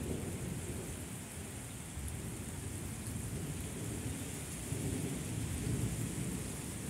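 Thunder from a severe thunderstorm rumbling low and long, swelling about two seconds in and again near the end, over the steady hiss of falling rain.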